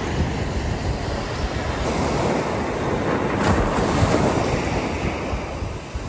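Small waves breaking and washing up on a sandy beach, swelling louder about halfway through, with wind buffeting the microphone.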